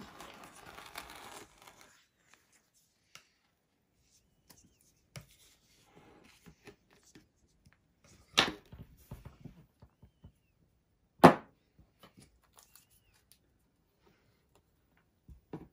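Plastic toy rolling pin rolling over kinetic sand with a soft, crumbly rustle that stops after a second or two. Then small scattered taps and scrapes as the pin is handled in the sand, with two sharp knocks about 8 and 11 seconds in, the second the loudest.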